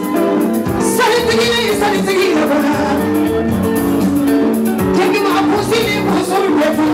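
Guinean popular dance music played loud, with a woman singing over the band.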